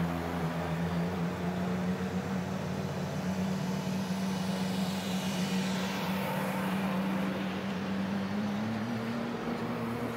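Several track-day cars rolling slowly in a queue down a pit lane, engines running at low revs with a steady drone; one passes close by about halfway through.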